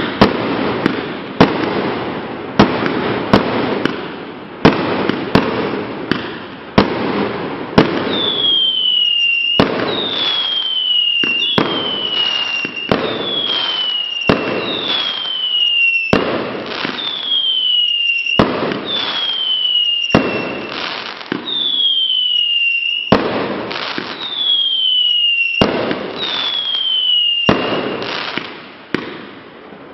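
Bugano Phönix fireworks battery firing shot after shot: a string of sharp bangs, with a steady rush of noise between them at first. From about eight seconds in, each shot carries a short whistle (howler) that falls in pitch, about one every one and a half seconds.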